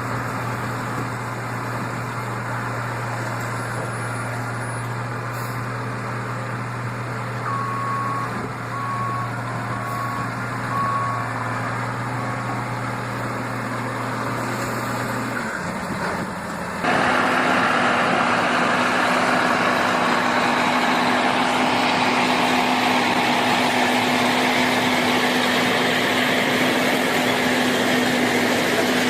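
Heavy road-construction machinery engines running steadily, with a vehicle's reversing alarm beeping about five times, starting around eight seconds in. About seventeen seconds in, the sound switches abruptly to a louder, harsher machine noise.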